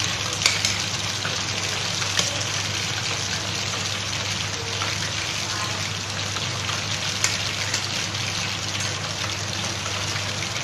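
Chicken skewers deep-frying in hot oil: a steady, dense sizzle of bubbling oil, with a few sharp clicks.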